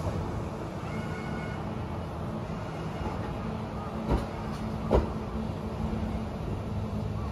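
Kintetsu electric train running with a steady low rumble and hum, broken by two sharp knocks a little under a second apart, past the middle.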